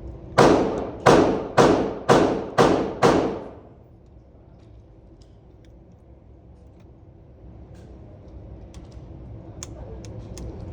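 Six gunshots fired in quick succession, about two a second, each with a short echoing tail.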